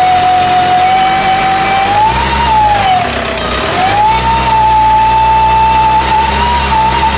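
1999 VW ALH 1.9 TDI four-cylinder diesel running with a loud, steady whistle over the engine note. The whistle rises and then falls with a short rev about two seconds in, then holds a little higher. The owner thinks the whistle comes from the turbo.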